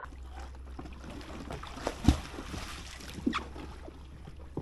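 Water sloshing and trickling with scattered knocks against an Oru folding kayak's plastic hull as a swimmer hauls herself back into the cockpit, the loudest a single low thump about two seconds in.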